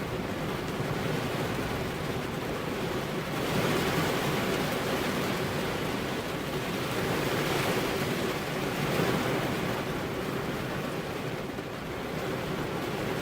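Heavy rain falling steadily, a dense hiss that swells louder twice, around four seconds in and again around eight seconds in.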